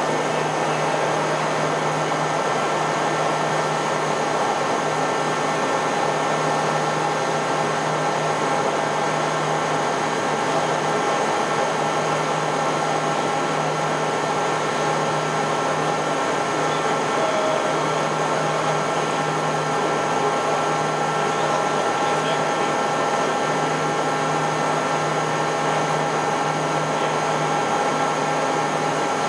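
Scharmann Heavycut 4.2 ram-type floor boring and milling machine running: a steady low hum with several constant higher tones over an even mechanical hiss, unchanging throughout.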